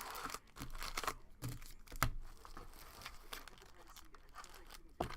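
Trading card packs and cards being handled: foil wrappers crinkling and tearing, with a string of short crackles and clicks, the sharpest about two seconds in and near the end.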